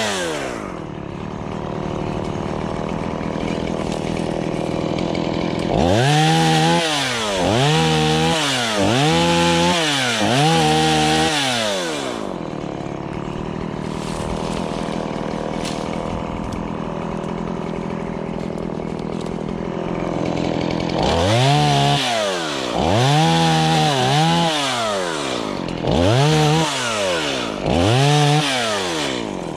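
Chainsaw engine running, revved in quick rising-and-falling bursts about once a second: four near the start and six near the end, with steadier running between.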